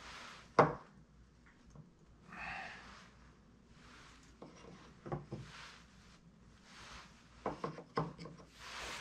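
Pieces of wooden board knocked and rubbed against a wooden base as a loose block is fitted into place. There is a sharp knock about half a second in, which is the loudest sound, then a few more knocks around five seconds and a quick run of them near the end.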